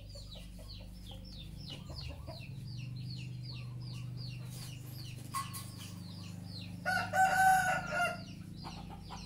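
A rooster crows once, loud and about a second long, near the end, over a steady run of rapid, high, falling chirps and a low hum.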